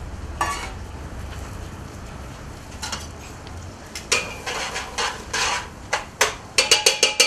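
A spoon stirring shallots and garlic in butter in a pot, scraping and clinking against the pot's sides. The clinks grow more frequent from about halfway through and end in a quick run of sharp clinks, over a low steady rumble.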